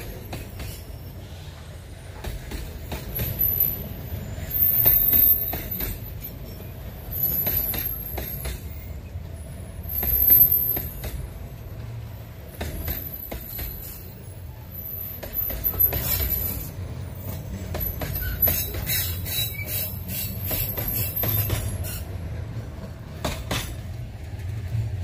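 Freight train covered hopper cars rolling past with a steady low rumble and clicking wheels. The wheels squeal high-pitched several times, each squeal lasting a second or less.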